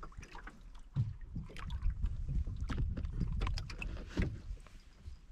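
Water slapping against a small aluminium boat's hull and wind rumbling on the microphone. Scattered light knocks and clicks come from the fishing line and gear being handled, with a firmer knock about a second in.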